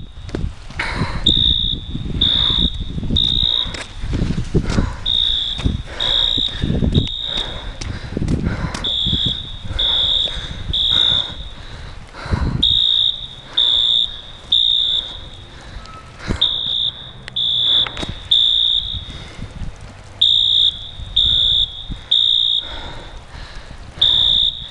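Building fire alarm sounding in a three-beep pattern: three high-pitched beeps about a second apart, a short pause, then again, repeating steadily. The onlooker takes it for one of a run of false alarms. Knocks and a low rumble are heard through the first half.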